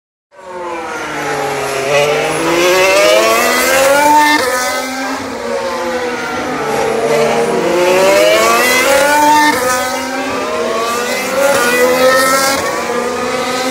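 2018 Formula 1 cars, each with a 1.6-litre turbocharged V6 hybrid engine, taking a tight hairpin one after another. The engine pitch falls as each car brakes and downshifts into the corner, then climbs again as it accelerates out through the gears.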